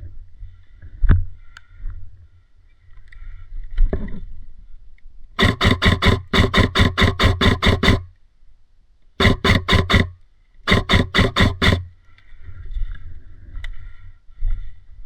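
Airsoft gun firing on full auto in three bursts: one long burst of about two and a half seconds, then two short bursts of about a second each, each made of rapid, evenly spaced shots. A sharp knock comes about a second in.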